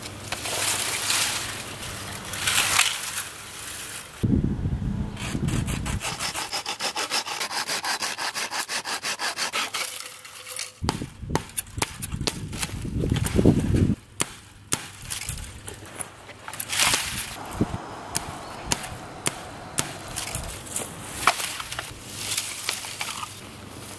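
A hand saw cutting through a dry stick with quick, even back-and-forth strokes, followed by scattered snaps and clicks of dry twigs and branches being handled. Wind rumbles on the microphone in between.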